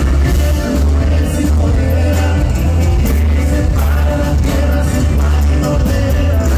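Live regional Mexican band playing a corrido loudly through a concert PA, with acoustic guitar, electric bass and drums; the bass plays long, deep notes under the band.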